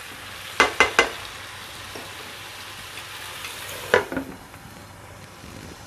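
Prawn, brinjal and tomato curry sizzling in a frying pan while being stirred, with three quick knocks of the spatula against the pan just under a second in. About four seconds in, a glass lid clacks down onto the pan, and the sizzle is quieter under it.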